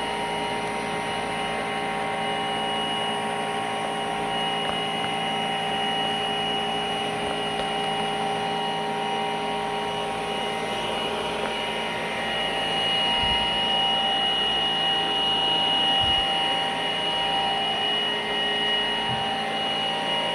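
AGARO Regency cordless stick vacuum cleaner running: a steady motor whine over a rush of air, growing a little louder about twelve seconds in.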